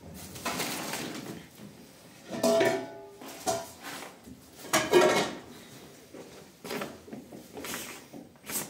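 Dishes being handled and set down: a string of clinks and knocks of bowls and plates, a few with a brief ring, the loudest about two and a half and five seconds in.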